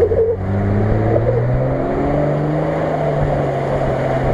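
Nissan Patrol 4x4's engine revving up as it pulls away. Its note rises over the first couple of seconds and then holds steady.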